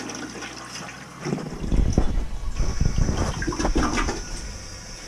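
Toilet flushing, water rushing and swirling down the bowl: a test flush to check that the main sewer drain, blocked at a clogged curb trap, now runs clear. From about a second and a half in, loud low rumbling and knocks lie over it, and a steady high hiss comes in about halfway.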